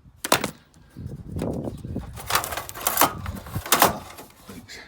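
Irregular sharp clicks and light knocks, with softer rattling between them, from screws and sheet-metal side panels being handled as an old three-phase welding set's casing is taken apart.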